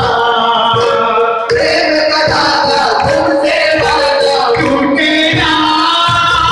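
A male voice leads a Hindi devotional bhajan, sung through a microphone, over a steady low beat.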